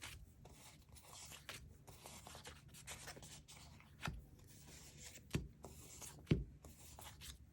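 Washi paper sticker sheets being handled and leafed through: faint rustling and sliding of paper, with three soft knocks, about four, five and a half, and six and a half seconds in.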